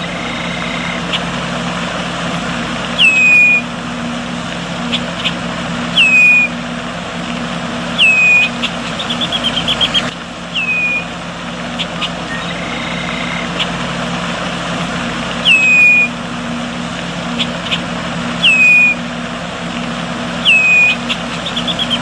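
Red-winged blackbird calls: a sharp, short whistled note sliding downward, repeated every two to three seconds, with a quick run of chattering notes twice, over a steady low hum.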